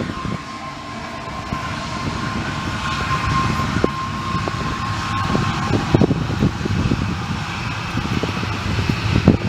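An aircraft's engines running with a steady high whine that stops about two-thirds of the way through, over a low rumble. Gusty wind buffets the microphone throughout.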